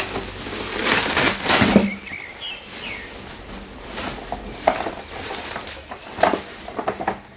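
Black plastic bubble-wrap packaging rustling and crinkling as hands pull a toy box out of it. The loudest burst of crackling comes a second or so in, followed by shorter, scattered crackles.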